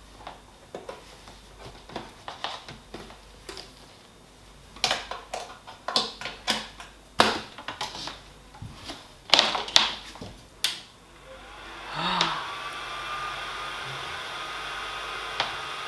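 Sharp clicks and knocks from handling the printer and its cable. About twelve seconds in, the Copymaster 300 3D printer is switched on and its fans start: a steady whir with a thin tone that rises briefly as they spin up.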